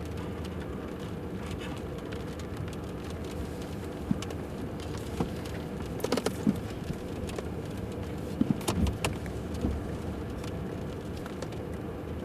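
Rain falling on a parked pickup truck's roof and windshield, with scattered sharper drops, over the steady hum of the idling engine.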